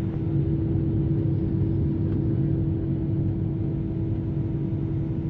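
Steady cabin drone inside an Airbus A320-214, from its CFM56 jet engines and the airflow, heard from an over-wing seat. A constant low rumble with a steady hum running through it.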